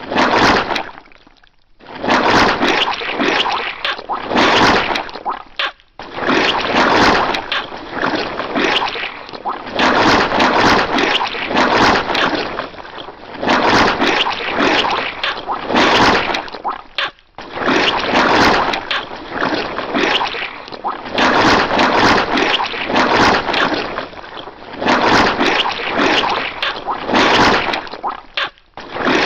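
Wet squashing and squelching sound effects, a dense run of squishy splats with a few brief breaks.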